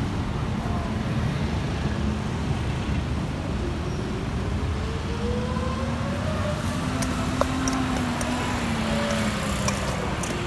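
A motor vehicle running, a steady low rumble with a tone that rises in pitch for a few seconds near the middle.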